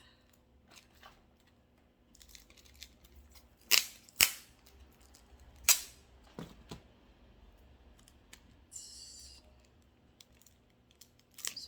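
Scissors cutting open an album package: a few sharp snips, three of them loud, and a short scratchy rasp near the end.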